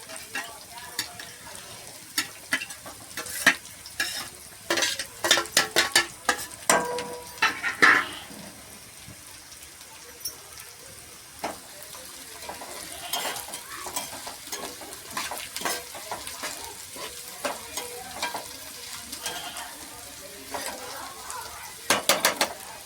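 Food frying in hot oil in a pan with a steady sizzle, while a metal spoon stirs and scrapes it, with a burst of rapid clinks and clatter about five to eight seconds in and another short burst near the end.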